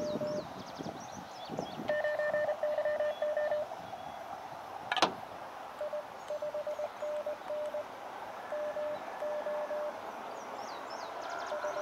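Morse code (CW) from the Elecraft KX2 transceiver's speaker: a single mid-pitched tone keyed on and off in dots and dashes, in several short groups with gaps between them. A sharp click about five seconds in.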